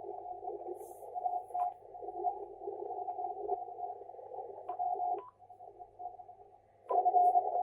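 Amateur radio transceiver's receiver audio through a narrow CW filter: a hiss squeezed into a narrow band, with a weak Morse tone fading in and out of the noise. The audio cuts out about five seconds in and comes back louder nearly two seconds later.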